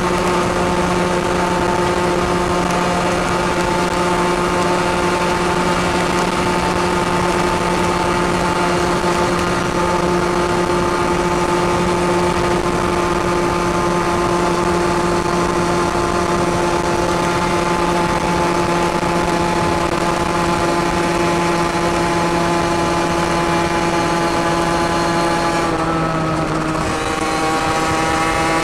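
Two-stroke 50 cc engine of a Derbi Senda DRD motorcycle running at steady high revs through an open Turbo Kit sport exhaust while riding. Near the end the revs dip briefly and then climb again.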